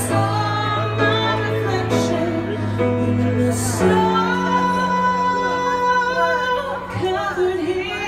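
A woman singing a slow ballad to her own piano accompaniment, the piano sustaining chords under the voice; about halfway through she holds one long note with vibrato.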